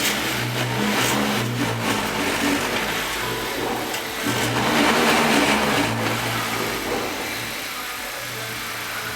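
Car engine running with some light revving as the lowered Honda Accord is maneuvered, over a low hum that comes and goes in pulses.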